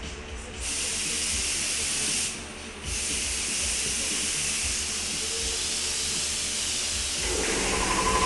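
Compressed-air paint spray gun hissing as it sprays clear coat onto a car body, cut off briefly about two seconds in as the trigger is let go, then resuming. Near the end a steady hum joins the hiss.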